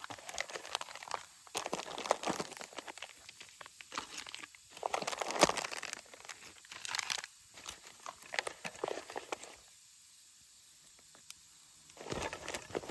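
Rustling and crinkling handling noise with small clicks, coming in irregular bursts, then a pause of about two seconds before it starts again near the end.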